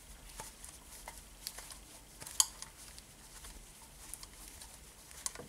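Small clicks and taps of a compression-tester hose and its fitting being handled against the cylinder head of a diesel engine, with one sharp click about two and a half seconds in and another near the end.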